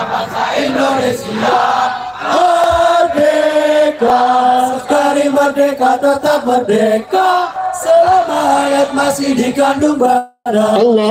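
Men's voices chanting an Islamic devotional qasidah in unison, the melody moving in held notes from phrase to phrase. The sound cuts out briefly about ten seconds in.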